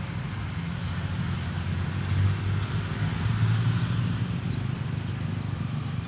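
Steady low rumble of motor-vehicle noise.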